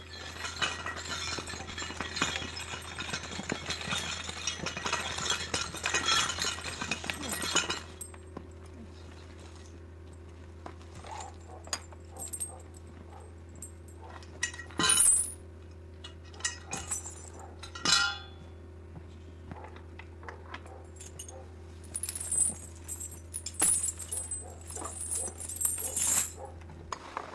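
Metal harness chains and fittings on a draft horse's collar harness clinking and jingling: a dense, continuous clatter for about the first eight seconds, then separate clinks and short jingles. A steady low hum runs underneath.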